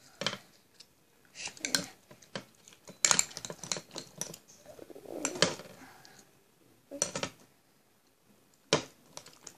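A spoon clinking and scraping against a glass bowl in irregular knocks while stirring thickening slime.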